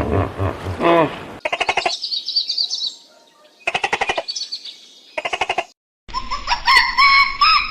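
A bleating call ends about a second in. Then an animal gives three bouts of rapid chattering, each followed by high, squeaky trills. After a brief gap, geese start honking near the end.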